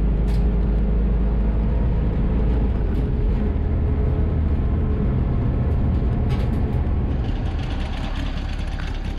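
Vehicle engine running steadily with road and wind noise while driving, easing off a little near the end.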